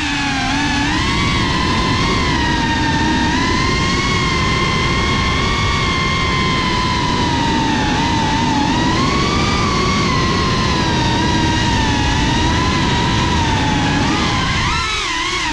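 Brushless motors and propellers of a Cinelog 35 cinewhoop FPV drone whining in flight, heard from the on-board GoPro. The pitch rises and falls with throttle over a rush of propwash and wind, and it dips briefly near the end.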